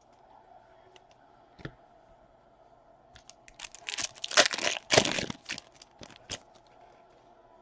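A trading-card pack wrapper being torn open: a dense run of tearing and crinkling about three and a half seconds in that lasts around two seconds, with a single sharp click before it and a few smaller ones after.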